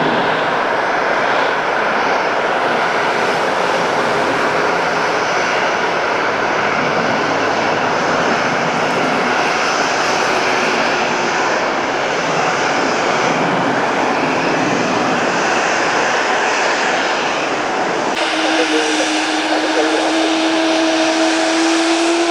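Jet aircraft engines running with a loud, steady roar. About 18 seconds in the sound changes abruptly, and a steady two-pitch engine whine comes in, rising slightly in pitch near the end.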